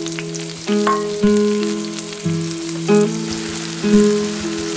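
Blueberries sizzling and crackling in hot butter in a cast-iron skillet, under background music of slow, held notes that strike about once a second and are louder than the sizzle.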